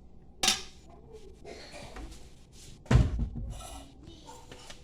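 Kitchen handling noises: a sharp click about half a second in and a heavier thump about three seconds in, with faint rustling and rattling between.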